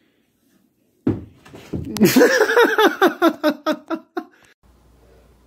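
A person laughing in a quick run of high-pitched bursts, about five a second, starting about a second in and stopping after about three seconds.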